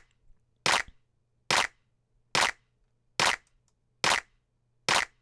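Layered electronic clap sample looping, seven short bright snaps evenly spaced a little under a second apart, each with a brief tail.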